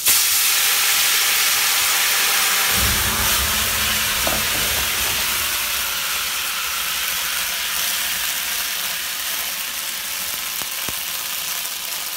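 Filet mignon steaks frying in butter in a skillet, a loud steady sizzle. About three seconds in, a low rumble joins for a couple of seconds as the cognac catches fire in a flambé, then the sizzle goes on alone, easing slightly.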